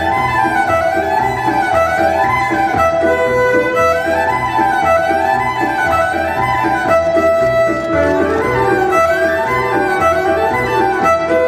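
Violin playing a fast folk tune in quick runs that climb and fall again and again, over a keyboard accompaniment with a steady bass beat: an instrumental break with no singing.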